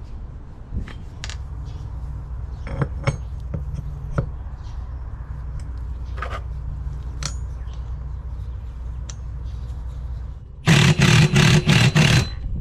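Metal parts clinking and scraping on a workbench over a steady low hum, then a cordless impact wrench hammering in several short bursts near the end.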